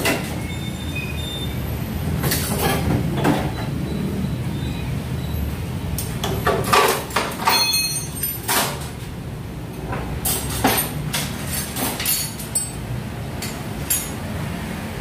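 Diesel injection pump test bench running with a steady low rumble. Short sharp hissing and clattering bursts come in several times over it while the bench controls are worked.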